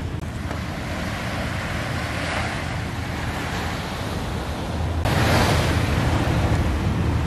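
Sea waves washing onto the shore, with wind buffeting the microphone; a wave surges louder about five seconds in.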